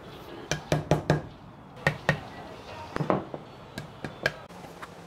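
Thin ebony inlay strips knocking against a hardwood cutting board as they are set into its grooves: a series of sharp wooden taps, many in quick pairs.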